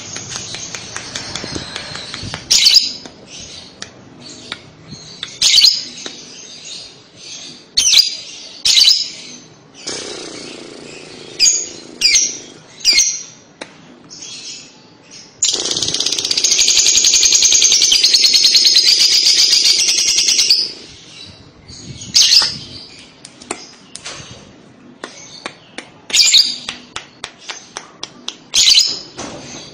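Fischer's lovebird giving its 'ngekek' chatter song: sharp single chirps scattered throughout, and in the middle one unbroken rapid chatter lasting about five seconds, the loudest part.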